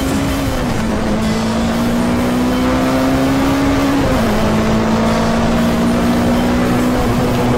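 Motorcycle engine accelerating hard at freeway speed, its pitch climbing steadily and dropping suddenly at two upshifts, about half a second in and about four seconds in, over wind noise.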